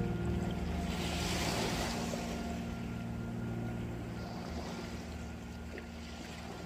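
A motorboat engine drones steadily offshore and slowly fades away, with a wave washing in about a second in.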